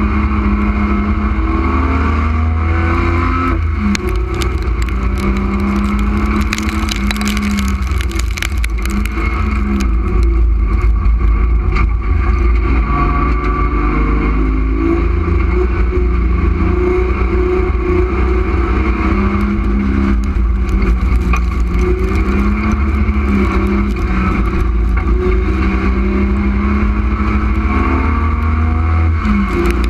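Street stock race car's engine heard from inside its stripped-out cabin at race pace, its revs rising and falling through the laps over a heavy low rumble. A patch of rattling and clicking comes a few seconds in.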